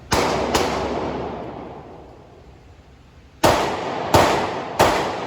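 Five gunshots at an indoor shooting range, each followed by a long echoing tail off the walls: two shots in quick succession, a pause of about three seconds, then three more about two-thirds of a second apart.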